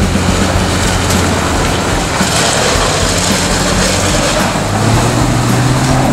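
Toyota LandCruiser 80 Series 4.2-litre turbo-diesel engine running at low revs while the vehicle crawls through a rocky creek, tyres splashing through water and over stones. The engine note rises about five seconds in as it climbs out onto the bank.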